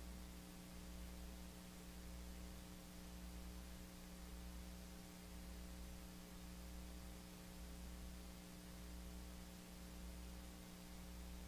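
Faint, steady electrical mains hum with a soft hiss, and a low rumble that swells and fades every second or so.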